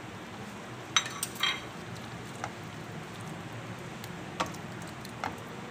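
Spatula stirring a watery potato curry in a pan, with about six light knocks and scrapes against the pan over a low, steady hiss.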